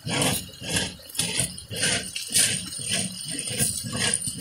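Plastic screw cap of a rainwater harvesting filter being twisted open by hand, rattling and scraping in short bursts about twice a second.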